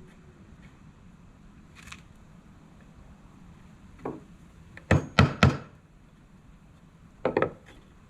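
Hammer driving nails into wood: a single blow about four seconds in, three quick blows a second later, and two more near the end.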